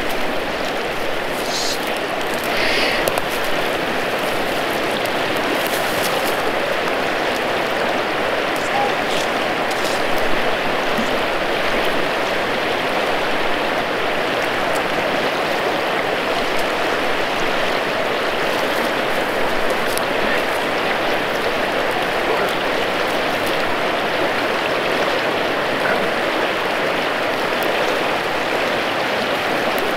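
A small creek in high, fast spring runoff, its water rushing past in a steady, even roar.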